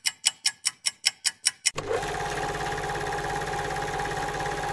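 Logo intro sound effect: a rapid train of sharp ticks, about five a second and quickening near the end, then from about two seconds in a steady electronic hum with a held mid tone.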